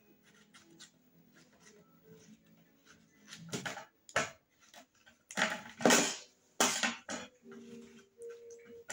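A large knife cutting watermelon flesh away from the rind and knocking against a metal serving tray. After a quiet start come a handful of scrapes and knocks, the loudest about six seconds in.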